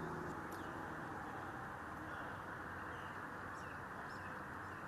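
Steady outdoor background hiss with a few faint, short, high bird chirps scattered through it.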